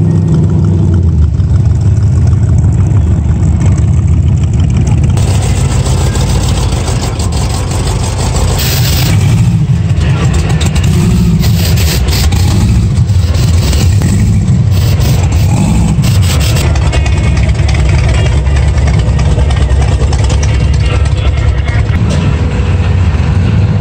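A car engine running with a deep, loud rumble, its pitch rising and falling a few times through the middle as it is revved.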